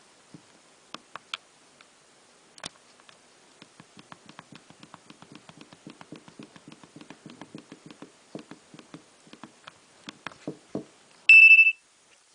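A run of faint clicks and small taps, then a short, loud single-pitched electronic beep from a Nokia 2300 mobile phone about eleven seconds in.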